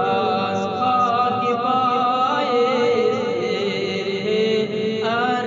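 Unaccompanied devotional chanting by a male voice, in long, drawn-out notes that waver and bend slowly in pitch, in the style of a naat or chanted refrain.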